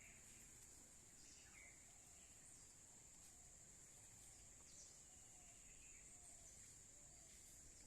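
Faint jungle ambience: a steady high-pitched insect drone, with a few faint short bird chirps scattered through.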